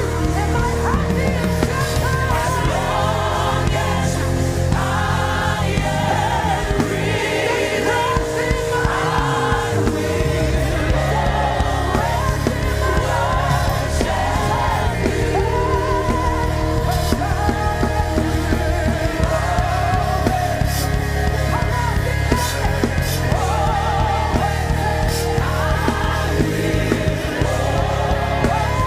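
Live gospel worship music: voices singing over a full band with bass and drums.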